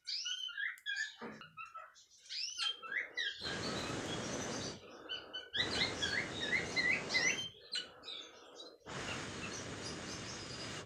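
Canaries chirping: many short, quick calls sliding up and down in pitch, broken by three bursts of rushing noise about two seconds each that start and stop abruptly.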